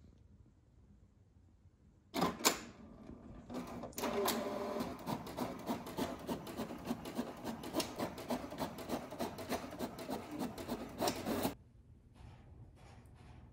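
HP inkjet printer printing: a loud clunk as the paper feeds in about two seconds in, then from about four seconds the print carriage shuttling back and forth with a rapid, rhythmic whirring and clicking that stops abruptly near the end.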